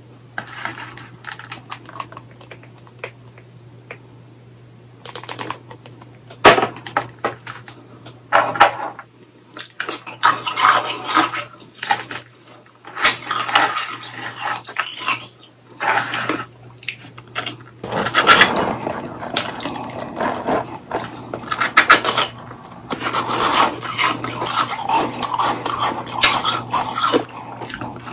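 Popsicles of packed shaved ice on clear ice sticks being handled, with sharp clinks of ice on ice, then close-up crunching as the shaved ice is bitten and chewed, coming thick and continuous through the last ten seconds. A low steady hum sits underneath.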